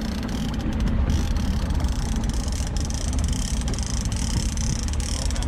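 Steady low rumble and hiss of wind and water around a small outboard boat at sea.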